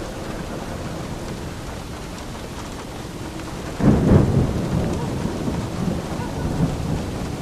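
Steady heavy rain with a clap of thunder breaking suddenly about four seconds in, then rumbling and slowly fading.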